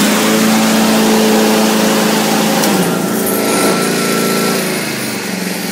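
Honda HRR216 lawn mower engine running steadily with the blade engaged, holding its speed under the blade's load without bogging down or surging after a carburetor cleaning. Its level falls off gradually near the end.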